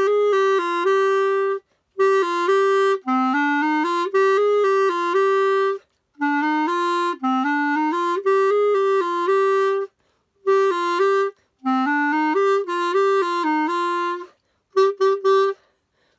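Solo clarinet playing a melody in phrases of several notes, with short breath breaks between them, ending in a few short, accented notes.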